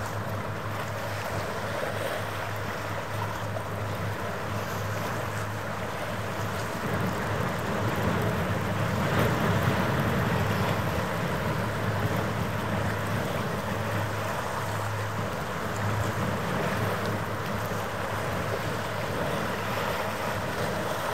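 Wind blowing on the microphone over a low steady hum, gusting louder about seven to eleven seconds in.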